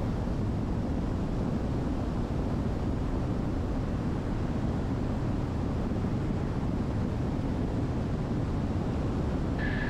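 Steady drone of the Diamond DA62's twin Austro diesel engines and airflow in cruise. Just before the end a short high beep starts.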